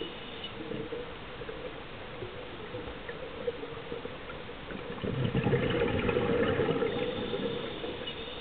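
Muffled underwater noise heard through a camera housing. About five seconds in, a louder rush lasting a couple of seconds: a scuba diver's exhaled bubbles.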